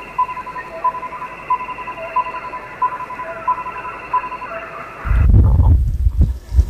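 Short electronic beeps repeating about one and a half times a second, with a lower second tone joining every other beep, thin and tinny like sound through a phone or radio. About five seconds in they cut off and a loud low rumble takes over.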